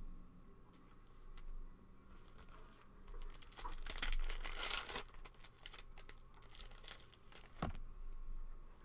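A trading-card pack wrapper being torn open and crinkled by hand, with the loudest tearing a few seconds in and a sharp click near the end.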